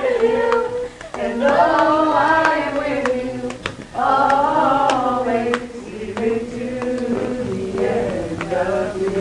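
Voices singing together in long held notes that rise and fall slowly, with a few sharp clicks among them.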